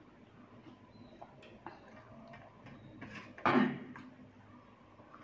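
Metal fork and spoon clicking and scraping against a plate of rice noodles in curry as they are stirred. About three and a half seconds in there is a louder wet swish as a forkful of noodles is lifted out of the sauce.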